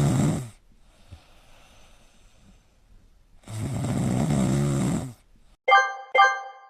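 Two long, rattling snores from a sleeping pet, the second starting about three and a half seconds after the first ends. Two short plinked musical notes follow near the end.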